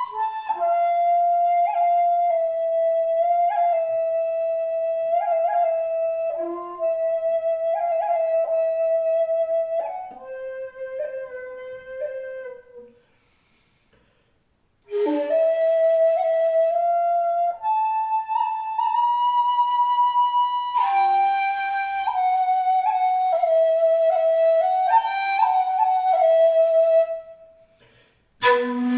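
Wide-bore jinashi shakuhachi, 2.1 length in B, played solo in two slow phrases. Long held notes are broken by quick flicked grace notes, with breath noise in the tone. There is a pause of about two seconds in the middle, and a new low note starts near the end.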